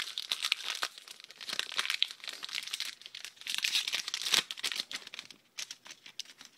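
Pokémon booster-pack wrapper being torn open and crinkled: dense crackling through the first four and a half seconds, then a few sparser crinkles.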